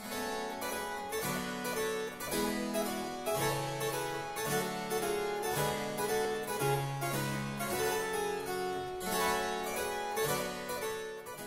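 Background instrumental music: a steady run of pitched notes over a bass line that changes about once a second.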